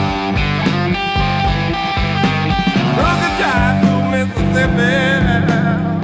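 Rock music with guitar and a drum beat, with bending guitar notes in the second half.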